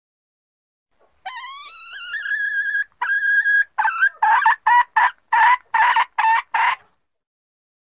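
Junglefowl hen calling: a long call that rises and levels off, a shorter held note, then a run of about eight short, harsh clucks, roughly three a second.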